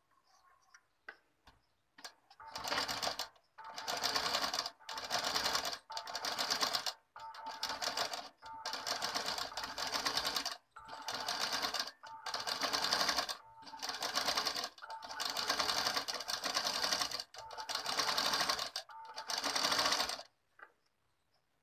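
Black domestic sewing machine running in short bursts of about a second each, a dozen or so in a row with brief stops between, stitching through layered blouse fabric, canvas and lining. A few light clicks come before it starts, about two seconds in.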